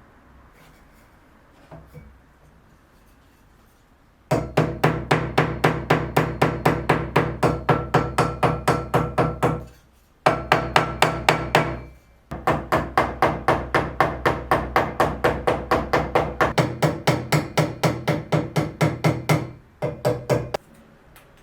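Rapid, evenly spaced hammer strikes on wood, about five a second, each blow ringing with the same tone. They come in three runs, with two short breaks near the middle.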